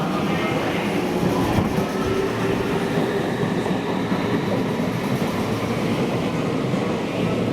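Meitetsu electric train moving through a station platform, steady wheel and running noise on the rails.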